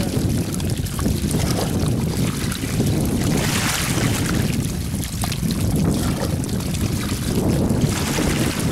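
Steady rush of water pouring through a woven bamboo basket trap packed with puti fish, with wind rumbling on the microphone.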